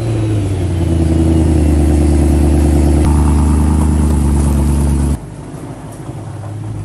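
BMW E92 M3's V8 just fired up, running at a steady, loud high idle through its quad exhaust. About five seconds in the sound drops abruptly to a quieter idle.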